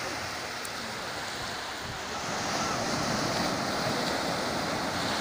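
Sea surf breaking on a sandy beach: a steady wash of waves that swells louder about two seconds in.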